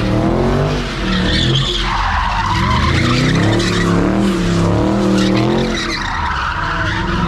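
A car spinning its tires in a sideshow donut: the engine revs up and down again and again over the continuous screech of the tires.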